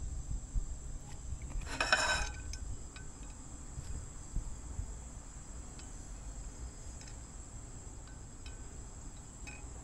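Stainless steel frying pan handled on a portable butane camp stove: a short metallic clatter with a brief ring about two seconds in as it comes off the grate, then a few faint light clinks as olive oil is swirled in it. A steady high insect trill runs underneath.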